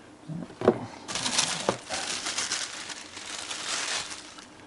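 Plastic packaging crinkling and rustling as it is handled, with a sharp knock a little under a second in.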